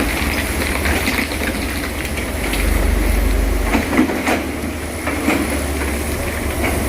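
Heavy diesel engine of an excavator running steadily under load, with scattered metallic clanks and knocks.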